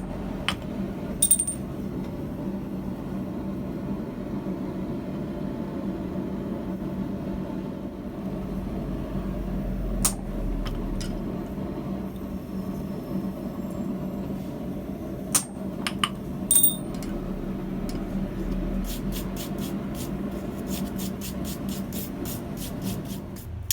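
Light metallic clinks of steel tongs and tools being handled over a steady hum: a few single sharp clinks, then a quick run of light taps, about four a second, near the end.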